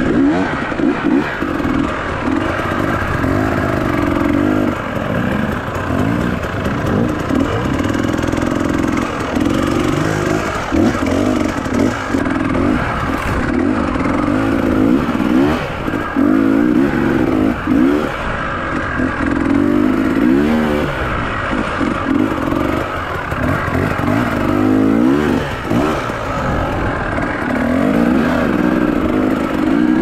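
Enduro dirt bike engine revving up and down again and again as the rider works the throttle over a rocky climb, with the bike clattering and knocking over the rough ground.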